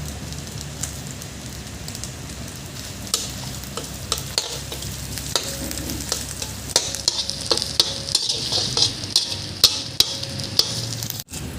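Food frying in hot oil in a pot while being stirred: a steady sizzle, with a metal spoon or spatula clicking and scraping against the pot, the sizzle growing louder in the second half.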